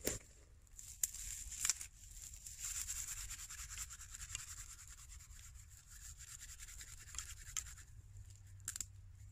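Dry kindling and wood shavings being handled and arranged by hand: a few sharp clicks of wood pieces knocking together, and a stretch of scratchy rubbing and rustling in the middle.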